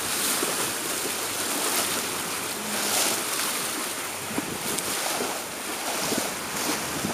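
Wind buffeting the microphone over the steady rush of choppy waves and water around a sailing yacht under way.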